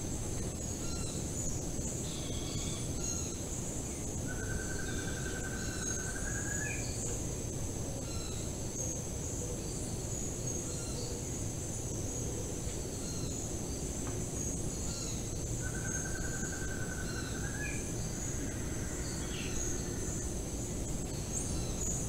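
Tropical forest ambience: a steady high-pitched insect drone over a low steady rumble, with scattered bird chirps. Twice a bird gives a buzzy trill about two seconds long that ends in a short upward note.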